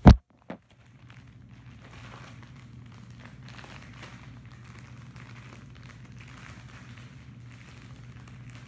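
Handling noise: a sharp knock, a smaller knock about half a second later, then faint steady rustling over a low hum.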